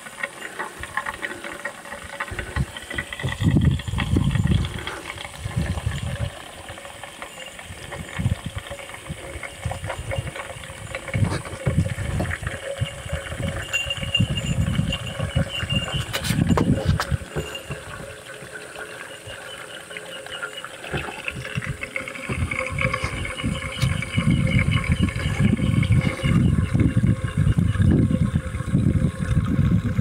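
Gasoline glugging out of a plastic gas can into the sawmill engine's fuel tank, coming in uneven spells of gulps, over a faint steady hum.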